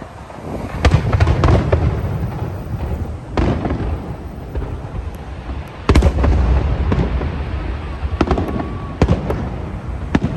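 Aerial fireworks bursting in a rapid series of sharp bangs, each trailing into a low rumbling echo, with the heaviest bangs about one second in and again about six seconds in.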